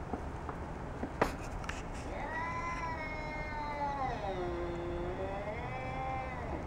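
A cat's long, drawn-out yowl of about four seconds, sinking in pitch in the middle and rising again before it breaks off: a warning yowl in a standoff between two cats. A sharp click about a second in.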